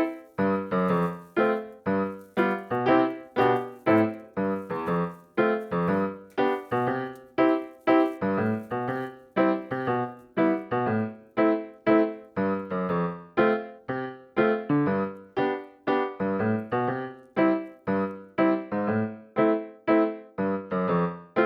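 Background music: a piano-like keyboard playing a steady run of evenly spaced notes, about two a second.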